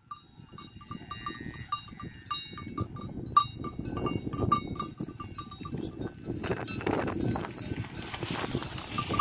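Livestock bells clanking in a quick, uneven string as cattle walk up through mountain pasture, over low rustling and shuffling on the grass. From about two-thirds in, a broad hiss joins as the cows crowd right up to the microphone.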